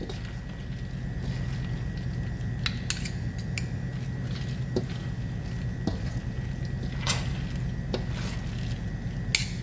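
Two large spoons stirring and folding mayonnaise-dressed macaroni salad in a stainless steel mixing bowl: wet squishing, with a few irregular clicks of the spoons against the steel, over a steady low hum.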